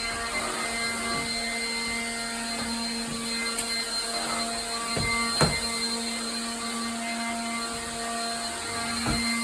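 Vacuum cleaner running with a steady motor hum. There is a brief click about three and a half seconds in and a knock about five and a half seconds in.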